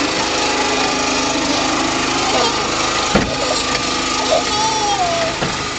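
Elevated ride train running with a steady motor drone and hum, with a single sharp knock about three seconds in.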